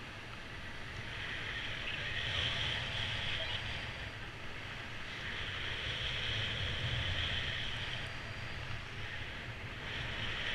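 Airflow rushing over the pilot's camera microphone in paraglider flight: a steady hiss and low rumble that swells and eases in waves as the wind strengthens and drops.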